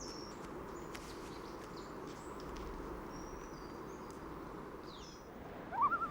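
Faint outdoor nature ambience: scattered short, high bird chirps over a low, steady hiss. Near the end a louder rising, wavering tone sounds.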